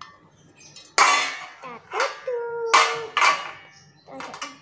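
Perforated metal stovetop grill plate clattering and clanking as it is handled and set onto its metal base pan, in several sharp knocks, the loudest about a second in.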